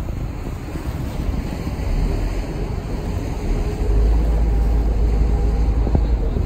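Wind rumbling on the microphone aboard the Staten Island Ferry, over the ferry's steady running noise. The low rumble swells a little over halfway through, with a faint steady hum underneath.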